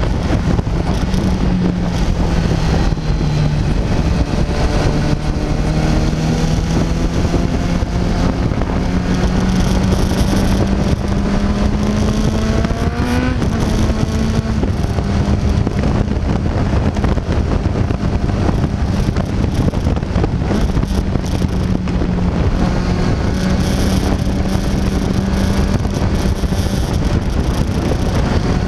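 Sport motorcycle engine running at road speed, its pitch climbing slowly through the first half, dropping sharply about halfway through and then holding steady, under a constant rush of wind on the microphone.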